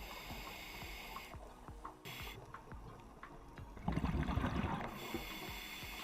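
A diver breathing underwater through a scuba regulator: hissing breaths in, and a louder gurgle of exhaled bubbles about four seconds in.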